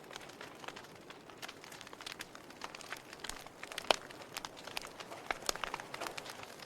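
Wood fire burning in a fireplace: a low hiss with irregular sharp crackles and pops, the loudest pop just under four seconds in.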